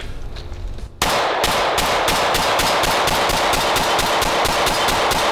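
Semi-automatic pistol fired in a rapid string, about five shots a second, starting suddenly about a second in and running on without a break, the shots' echoes filling the gaps between them.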